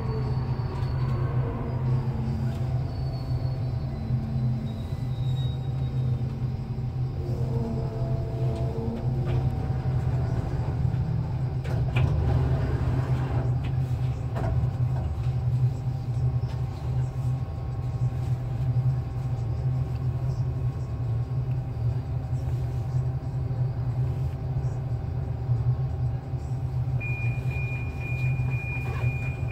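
Inside a Budapest Metro M4 train (Alstom Metropolis): a steady low electric hum throughout, with the traction motors' whine gliding in pitch in the first seconds and again around eight seconds in. Later the train stands at a signal in the tunnel with only the hum, and near the end a steady high tone sets in.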